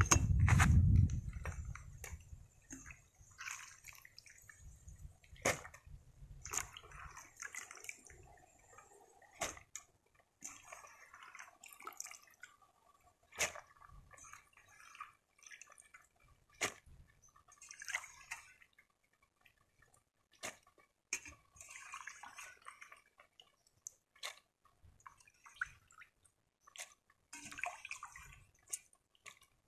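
Curry broth boiling in an aluminium pot, with scattered sharp pops and clicks and short bubbling patches. A low rumble sounds over the first second or two.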